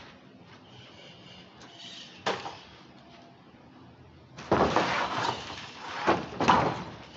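Construction debris clattering on a scaffold: one sharp knock, then a loud crashing, crumbling noise lasting about a second, and two shorter crashes near the end.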